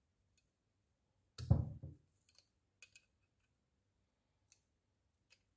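Hand-held punch pliers squeezed shut to punch a hole through the flattened end of a chainmail ring: one sharp metallic clunk about a second and a half in, followed by a few light clicks as the ring and pliers are handled.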